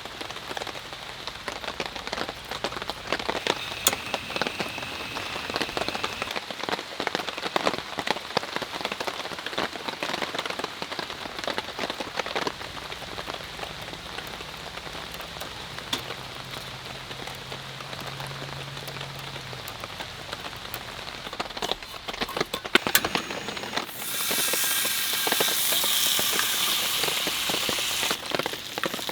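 Rain pattering on a surface, a dense run of small drop ticks. About four seconds from the end, a louder steady hiss comes in for several seconds, then stops.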